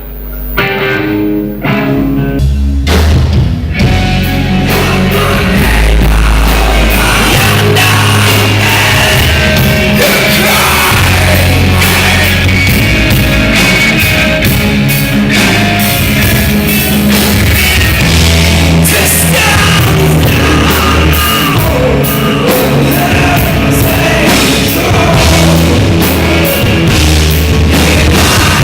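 Heavy rock music with electric guitar, bass and drums. A few quieter guitar notes open it, then the full band comes in loud about two and a half seconds in and keeps a steady driving level.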